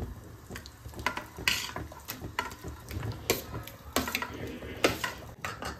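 Metal spatula scraping wet marinated chicken off a steel plate into a pan, a series of irregular scrapes and clinks of metal on metal.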